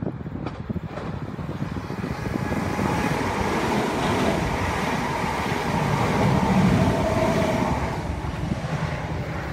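Electric multiple-unit passenger train passing close below at speed: a rushing rumble of wheels on rail that swells to its loudest about six to seven seconds in, then begins to fall away.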